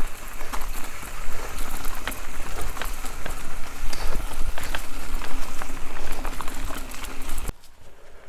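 Mountain bike ridden along a forest trail, heard through an action camera with wind rushing over its microphone: a steady loud rumble and hiss with scattered sharp rattling clicks from the bike. The noise drops away suddenly near the end.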